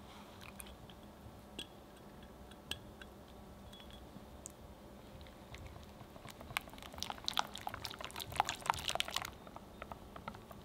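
Silicone-coated balloon whisk stirring soft cream-cheese cheesecake batter in a glass bowl: a dense run of wet clicks and taps from about six to nine seconds in. Before that it is quiet, with a few faint ticks while melted gelatin is poured into the batter.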